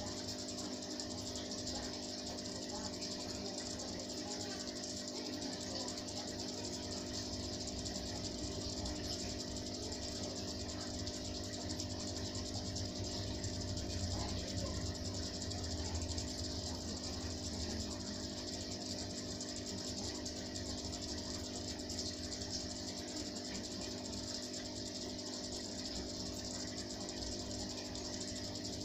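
Steady hum of aquarium pumps, the submersible filter and air bubbler running, with a continuous high-pitched hiss over it.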